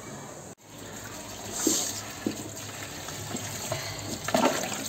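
Water running from a kitchen tap into a stainless-steel sink, splashing over a bunch of green onions being rinsed by hand.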